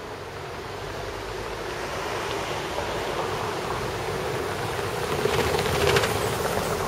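A car drives down a wet cobblestone street and passes close by. The hiss and rumble of its tyres on the wet cobbles grows louder and peaks about six seconds in as it goes past.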